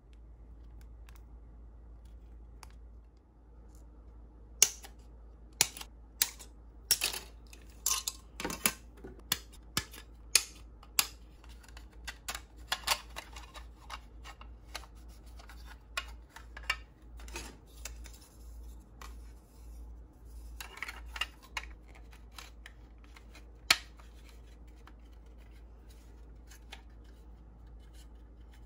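Irregular sharp clicks and light taps of hard plastic being handled: the styrene body shell of a Hasegawa 1/24 BMW 2002 ti kit turned over in the hands above the parts box. The clicks start a few seconds in, come in clusters, and stop with a last loud click a few seconds before the end, over a steady low hum.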